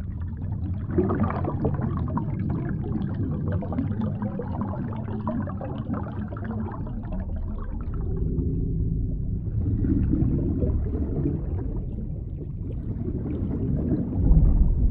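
Underwater ambience sound effect: a muffled, low rumbling wash with gurgling bubbles. It swells in waves and ends in a heavy low surge just before the end.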